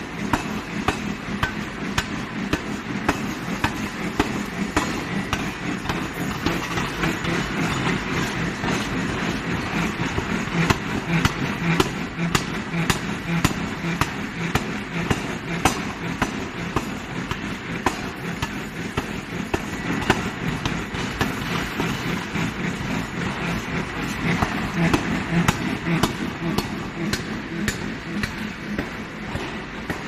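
Power forging hammer striking a red-hot steel billet on its die in a steady run of sharp, repeated blows, over the continuous din of forge-shop machinery.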